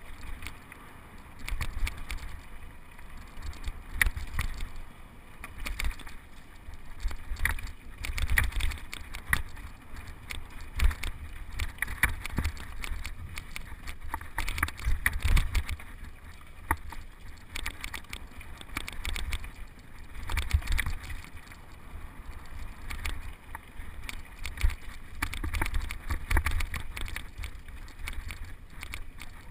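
Mountain bike riding down rocky singletrack, heard from a helmet-mounted camera: a low, gusting wind rumble on the microphone with frequent clatter and knocks as the tyres and bike go over loose rocks.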